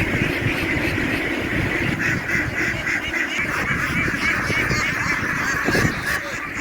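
A large flock of domestic ducks quacking all at once, a dense continuous chatter of many overlapping calls like a swarm of bees.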